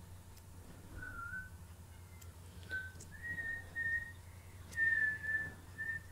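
A person whistling a string of short and held high notes, starting about a second in.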